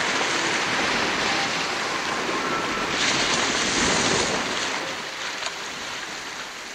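Ocean surf: a steady wash of waves, with one wave swelling about three seconds in and falling back.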